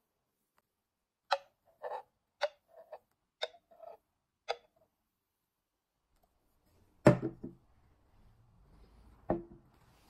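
Clock-like tick-tock clicks, alternating strong and weak at about one strong tick a second, for a few seconds. After that comes a solid knock of a ceramic latte cup set down on a wooden counter, and a second, lighter knock about two seconds later.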